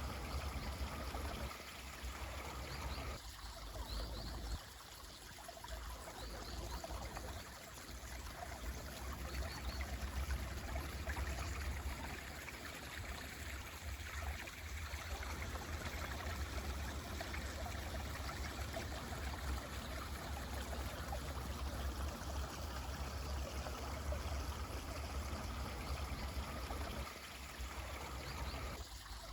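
Mountain stream flowing steadily, with a few faint, short high chirps from birds in the first ten seconds.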